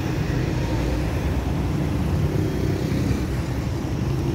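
Steady noise of road traffic, a continuous low hum of passing vehicles with no sudden events.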